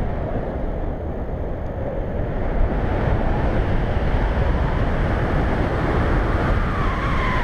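Rushing wind buffeting an action camera's microphone during a tandem paraglider flight, a little louder from about three seconds in as the glider banks into acrobatic turns. A faint tone slides down in pitch near the end.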